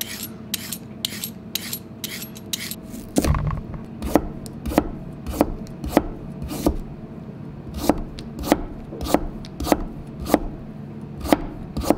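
A hand vegetable peeler scraping down a carrot in quick strokes, about four a second. A low thump follows, then a kitchen knife slicing the carrot into thin slices on a cutting board, one sharp knock on the board about every half second.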